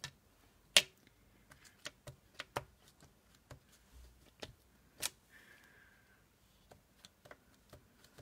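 Scattered light clicks and taps of rubber stamps and other craft supplies being handled on a table, with two sharper clicks about a second in and about five seconds in.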